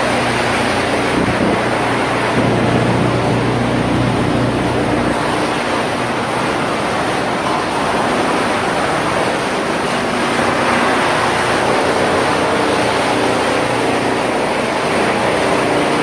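Wood-chipping line machinery running steadily: a loud, even rushing noise with a low hum under it.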